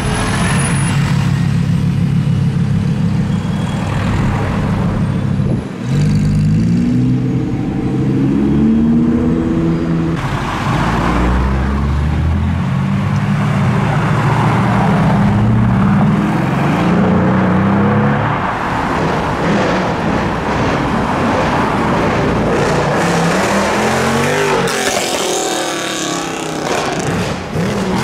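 Performance car engines revving and accelerating past on a street, their pitch rising and falling, with one car sweeping past near the end. A bus engine runs steadily for the first few seconds.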